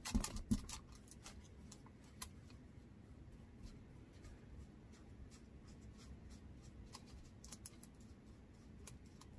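Foam sponge brush dabbing and stroking sealer onto an air-dry clay spoon rest: faint scattered taps and scratches, with a few louder knocks right at the start.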